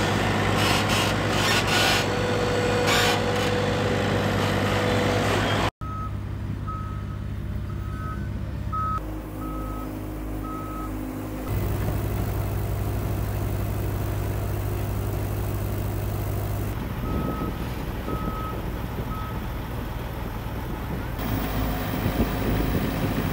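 Engines of small hive-loading machines running at a steady drone, with a reversing alarm beeping at an even pace in two runs, one a quarter of the way in and another past the middle.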